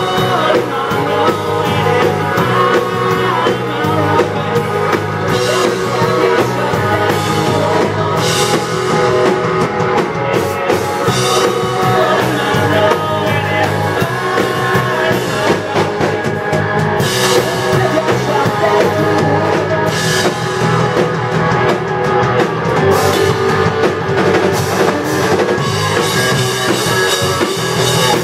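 Live rock band playing loud and without a break: hollow-body electric guitar, drum kit and upright bass.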